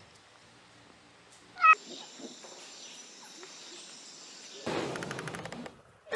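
A single short, high-pitched animal squeal about one and a half seconds in, then a faint steady hiss and about a second of rustling noise near the end.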